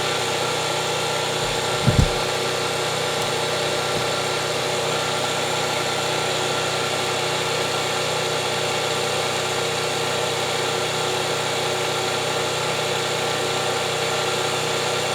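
Firman P03607 portable gas generator running at a steady speed, an even engine hum with several constant tones. A brief low bump about two seconds in.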